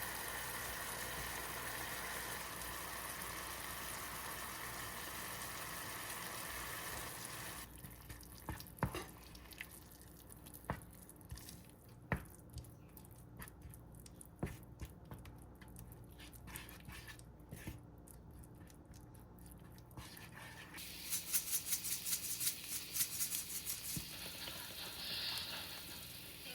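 Kitchen cooking sounds: a steady hiss for the first seven seconds or so, then scattered light clinks and taps of utensils, and near the end a quick run of rhythmic scraping strokes.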